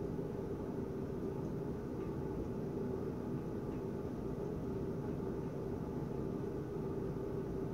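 Steady low background hum with a faint constant tone, unchanging throughout, with no distinct events.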